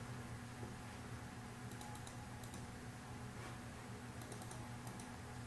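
Faint computer keyboard keys tapped in short clusters, about two seconds in and again about four seconds in, over a steady low hum.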